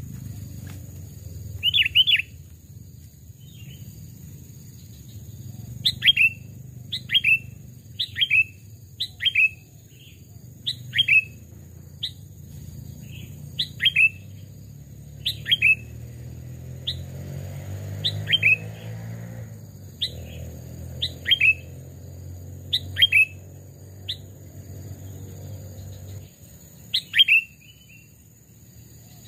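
Sooty-headed bulbul (kutilang) giving short, sharp call notes that drop in pitch, often in pairs, about once a second, over a low steady rumble that stops near the end.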